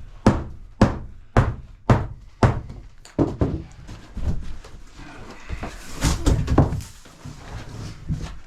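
Steady hammer blows during floor demolition, about two a second, giving way about three seconds in to irregular knocks and cracking as the old floor is broken out.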